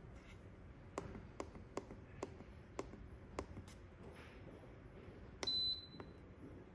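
Re・De Pot electric pressure cooker's control-panel button tapped about eight times in quick succession, each press a small click, as the slow-cook temperature is stepped. About five and a half seconds in, one short high beep, the loudest sound, as the Start/Confirm button is pressed to set the program.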